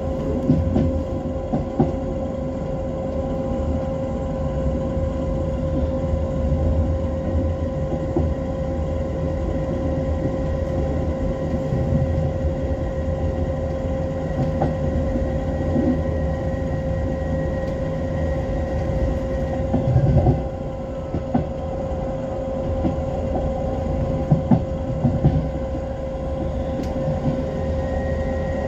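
A moving train heard from on board, running over multi-track main line and pointwork: a steady low rumble of wheels on rail with a constant hum, and short clacks as the wheels cross joints and points, loudest about two-thirds of the way in.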